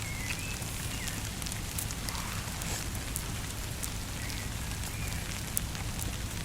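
Rain falling steadily, with scattered sharp ticks of drops over an even hiss and a steady low rumble underneath.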